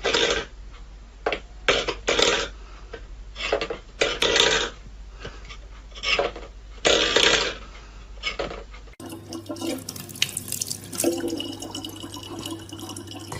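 A stainless steel pet bowl being pawed and pushed by a cat, scraping and rattling on a wooden floor in a series of short bursts about a second apart. About two-thirds of the way in this gives way to the steady splashing of a thin stream of water running from a faucet.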